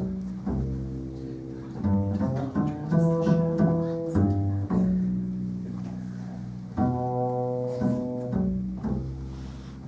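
Solo double bass playing a slow introduction, with single notes that start sharply and ring on, some overlapping one another.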